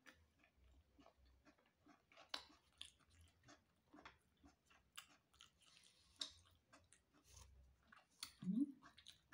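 Faint chewing and small mouth clicks of a person eating a rice meal by hand. A brief low voiced sound, like a short hum, comes near the end.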